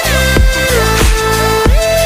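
Electronic background music with a heavy bass, a steady beat and a gliding synth melody.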